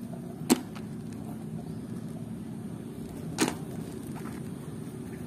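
Muddy plastic toy animals being handled and pulled off a wooden board: two sharp knocks about three seconds apart, over steady low background noise.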